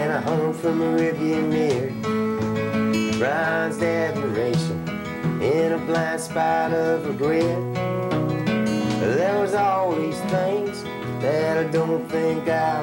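Acoustic guitar playing a country tune, chords strummed under a melody that rises and falls in pitch.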